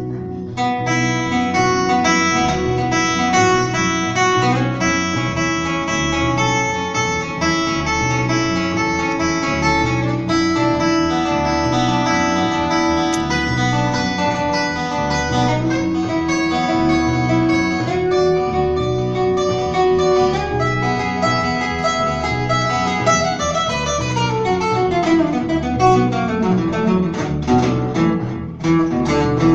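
Acoustic guitar and upright bass playing an instrumental jazz passage over a steady, regular bass pulse. Near the end a run of notes falls in pitch.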